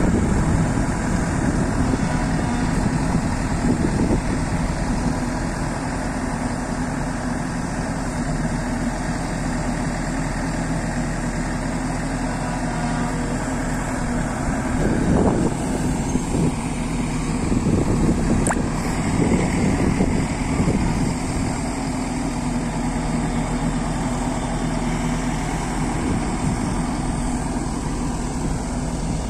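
Escorts Digmax II backhoe loader's diesel engine running steadily while the backhoe digs, rising briefly a few times about halfway through.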